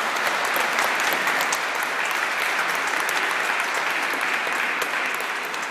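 Audience applauding steadily after a choral song has ended.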